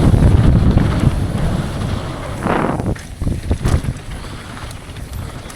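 Wind rushing over the microphone and the rumble of a downhill mountain bike's tyres and suspension on a rough trail, loud for the first half, then dropping off about halfway in. A short scraping burst comes just before the drop, followed by a few sharp knocks.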